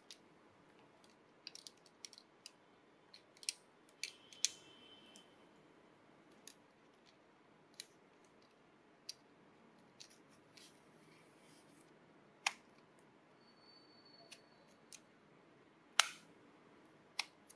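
Scattered sharp clicks and taps of a Koh-I-Noor plastic lead-refill case being handled, its clear sliding lid closed over the 2 mm leads, with the loudest clicks near the end.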